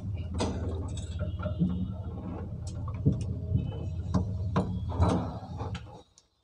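Passenger lift running: a steady low hum with scattered clicks and knocks from the moving cabin, cutting off abruptly near the end.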